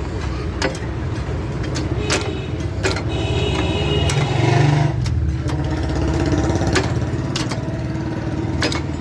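An engine running steadily, with sharp clicks at uneven intervals. A higher whine comes in between about three and five seconds in, where the sound is loudest.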